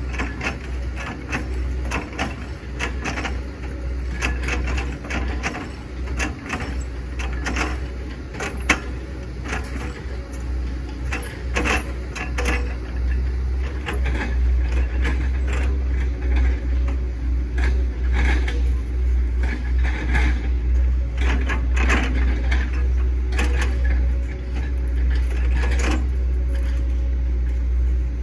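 Hitachi ZX110 excavator's diesel engine running under load, with frequent irregular cracks and knocks as the bucket chops up an oil palm trunk. The engine grows louder about halfway through.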